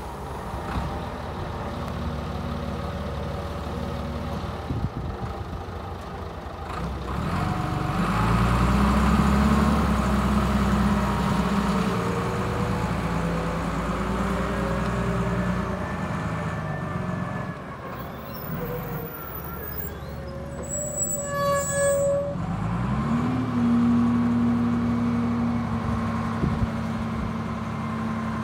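1990 Kalmar LMV DC 10-600 ten-tonne diesel forklift running and driving off. The engine note rises about eight seconds in as it pulls away. A little after twenty seconds it revs up again and holds a higher, steady note.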